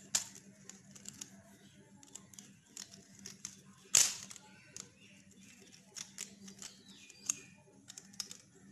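Scattered small clicks and rustles of a plastic extension board and its red wire being handled, with a screwdriver working at the brass socket terminals. A sharp click about four seconds in is the loudest sound.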